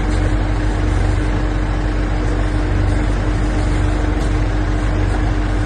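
Mazaka MW1000 pile driver's engine running steadily: an even low rumble with one constant tone over it, and no hammer strikes.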